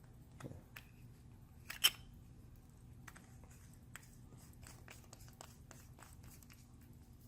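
Faint clicks and taps of antique pocket watches being handled, with one sharper click about two seconds in.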